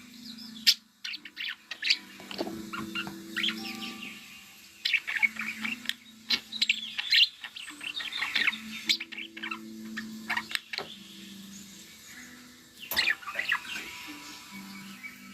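Budgerigars chirping and chattering in quick, irregular bursts of short high calls and sharp clicks, with a low steady hum coming and going underneath.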